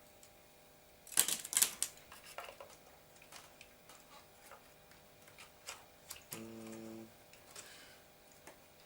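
Light clicks and knocks of hard plastic parts as a 3D-printed scale V8 engine is pushed into an RC crawler's chassis for a test fit, the loudest cluster about a second in. A brief steady hum about two-thirds of the way through.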